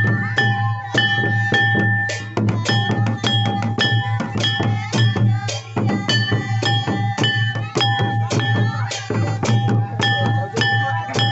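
Santali Sohrai festival music: quick, steady drum strikes, which the title names as tumdah and tamak, with held high ringing tones over a continuous low drone.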